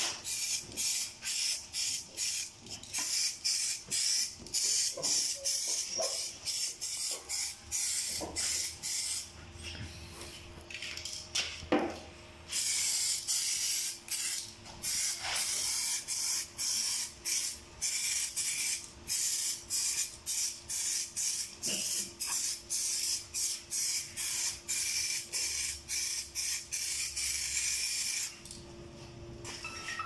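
Spray paint from an aerosol can, hissing in rapid short bursts, about two a second, with a pause of a few seconds about a third of the way in and again near the end.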